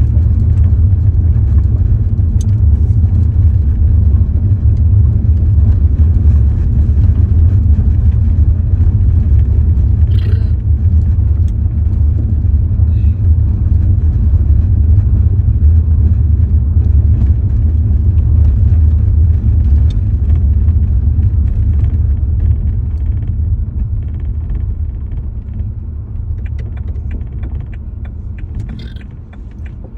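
Steady low rumble of a car driving on a gravel road, heard from inside the cabin. It fades over the last several seconds as the car slows.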